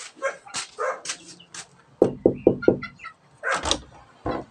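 Animal calls: scattered short sounds, then a run of four quick calls about two seconds in and a louder call a little later.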